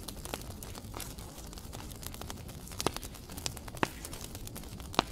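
Soft, irregular crackling with scattered sharp clicks over a low rumble; a few louder clicks stand out around three, four and five seconds in.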